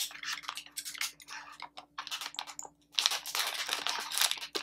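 Sealed plastic blind bag crinkling as it is handled and slit open with a utility knife: irregular crackles and small clicks, growing denser from about three seconds in as the blade cuts through the bag.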